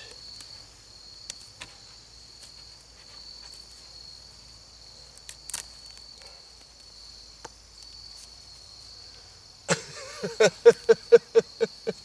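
Steady high chirring of insects, with faint scattered ticks and rustles of hands working loose garden soil. Near the end, a quick run of about ten short, loud voiced pulses, roughly five a second, cuts in.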